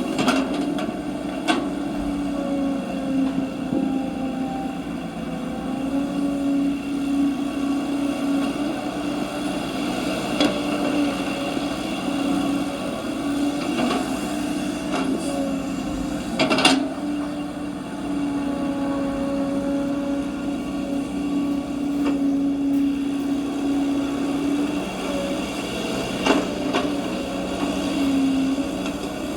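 Small electric motor of a radio-controlled construction machine running with a steady whine that wavers a little in pitch. A few sharp knocks or clicks stand out, the loudest about two-thirds of the way through.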